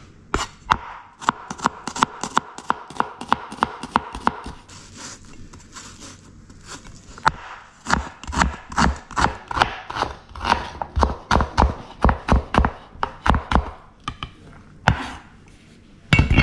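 Large kitchen knife chopping red onions on a wooden cutting board: quick, even knocks of the blade against the board, about four a second, with a brief pause a little after the middle.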